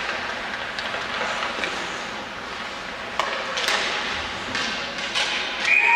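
Ice hockey play in an echoing rink: sticks and puck clacking and skates scraping over steady crowd and arena noise. Near the end a referee's whistle blows a long, steady blast as play is stopped.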